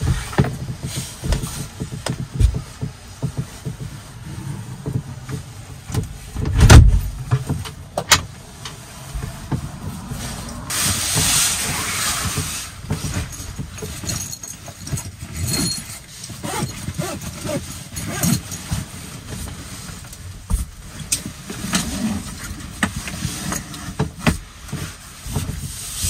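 A person moving about and handling bags inside a small wooden camper cabin: irregular footsteps and knocks on the board floor, bag and jacket rustling, a heavy thump about seven seconds in and a longer rustle around eleven seconds in.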